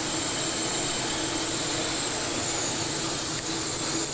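Steady machinery and airflow noise from a running film-coating line, mostly an even high hiss with a faint hum underneath.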